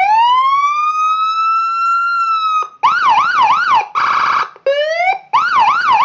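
Custom Whelen Panzer-style electronic police escort siren, a 45-watt siren module driving a 15-watt horn speaker, switched through its tones: a rising wail held for about two and a half seconds, then a fast yelp of about three up-down sweeps a second, a short buzzing horn blast about four seconds in, a brief rising whoop, and fast yelp again.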